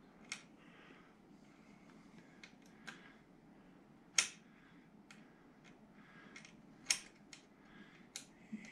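Scattered light clicks and taps of small parts and hardware being handled during assembly, with two sharper knocks about four and seven seconds in.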